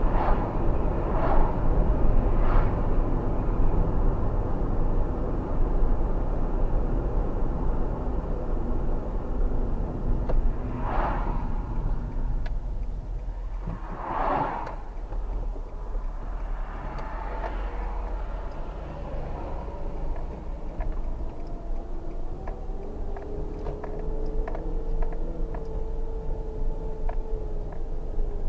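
Car engines running over a steady low rumble. In the last few seconds one engine note rises slowly and then falls away.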